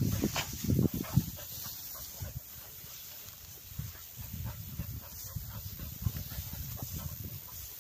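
Cocker spaniels close by, breathing and moving in rapid, irregular puffs, loudest in the first second or so and then softer.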